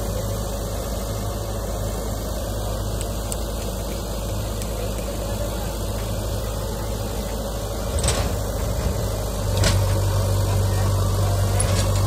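JCB 3DX Xtra backhoe loader's diesel engine running steadily while its loader arm works against an overturned trolley, growing louder about three-quarters of the way through. A couple of sharp knocks come about two-thirds in and again a second and a half later.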